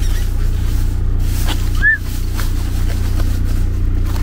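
Delivery truck's engine idling steadily, a low even drone. A few light clicks and rustles sit over it, with a brief squeak about two seconds in.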